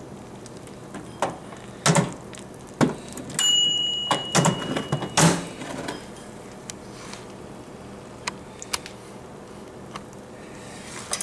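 Glass measuring cup being lifted out of a microwave with an oven mitt and set down: a series of knocks and clunks and the microwave door shutting. About three and a half seconds in, a steady high tone sounds for nearly two seconds and ends with a knock.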